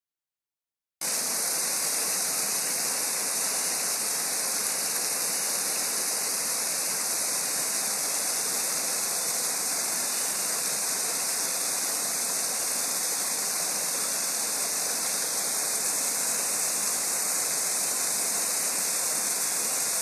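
Small waterfall pouring onto rocks and into a pool: a steady, loud rush of falling water that starts about a second in.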